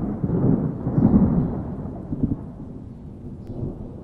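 Thunder sound effect: a low rumble that swells about a second in and then slowly fades away.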